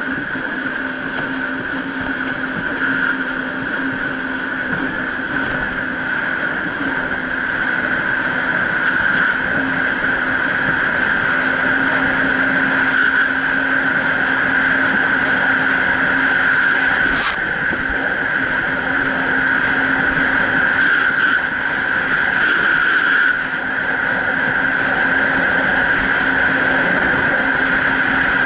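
Jet ski engine running at a steady cruising speed, a held drone over rushing water and wind noise. A single sharp click comes a little past halfway, and the sound eases off slightly about four-fifths of the way in.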